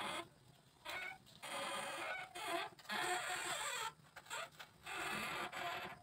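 Petung bamboo strip scraping and creaking against a steel hand-lever bending jig as a cage frame is bent. There are several scraping strokes, the longest about a second each, with short knocks between them.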